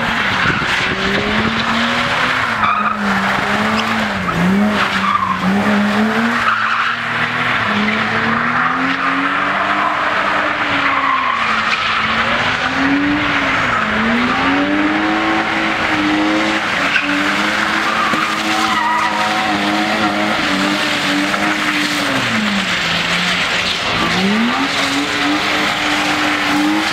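BMW E30 with a 2.7-litre M20B27 straight-six being drifted. The engine revs rise and fall over and over while the rear tyres skid and squeal continuously.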